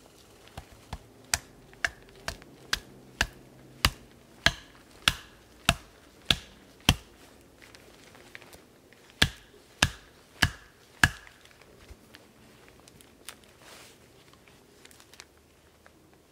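Wooden baton striking the spine of a bushcraft knife to split a piece of wood: a run of sharp knocks about two a second, a pause, then four more, with faint small knocks after.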